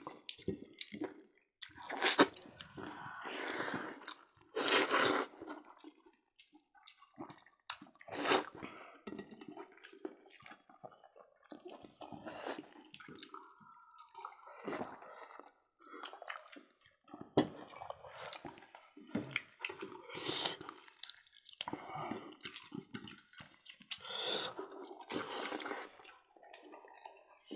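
Close-miked eating sounds of several people chewing, smacking their lips and handling pork and rice with their fingers, in irregular bursts, some louder than others.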